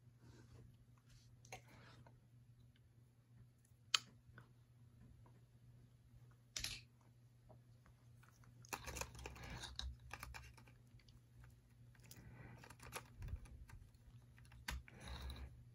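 Faint clicks and rattling of hard plastic Zord toy parts being handled and fitted together: a sharp click about four seconds in, then scattered bursts of scraping and clattering in the second half.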